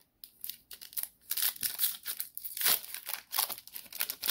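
Foil trading-card pack wrapper crinkling and tearing as it is pulled open by hand: a quick run of crackles.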